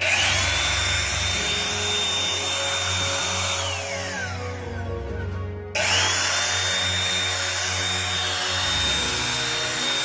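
Intex Quick Fill AC electric air pump running, its motor spinning up at once to a high, steady whine over a rush of air, a sound like a circular saw. It is switched off about a third of the way in and winds down with a falling whine. It is then switched on again a couple of seconds later and runs at full speed.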